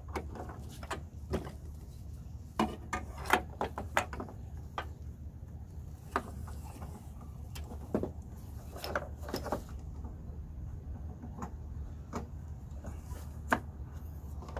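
Irregular plastic clicks and knocks as an LED headlight bulb and its wiring are handled and worked into the headlight housing's socket, over a steady low hum.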